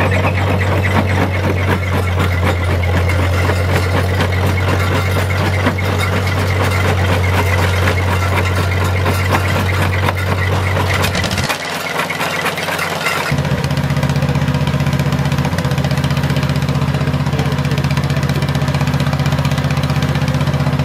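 Engine-driven antique gold ore mill machinery running, with a steady low drone and dense rapid knocking and rattling as rock is fed in and crushed. About twelve seconds in the sound dips briefly, and a steady, slightly higher-pitched drone takes over.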